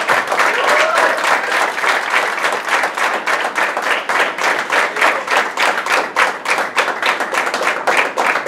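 A room full of guests applauding, many hands clapping steadily.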